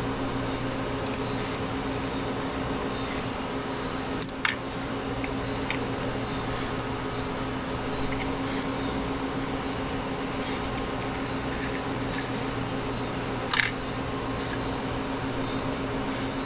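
Steady mechanical hum of equipment in a room, with a few faint ticks and two sharp knocks, about four seconds in and again some nine seconds later.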